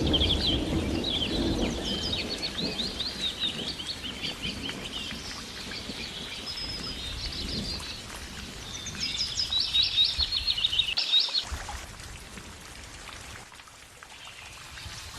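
Small songbirds chirping and trilling in quick, dense bursts that fall away about eleven seconds in, over a low rumble that is strongest in the first few seconds.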